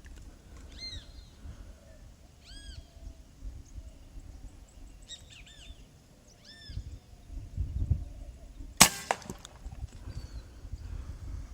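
A single sharp shot from a Mendoza Escuadrón M30C air rifle about three-quarters of the way in, followed a fraction of a second later by a fainter knock. Before the shot a bird gives short arched chirps every second or two, over a low rumble of wind on the microphone.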